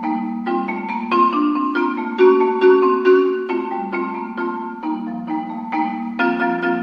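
Solo concert marimba played with four yarn mallets: quick repeated strokes sustaining chords in the low and middle range that shift every half second or so.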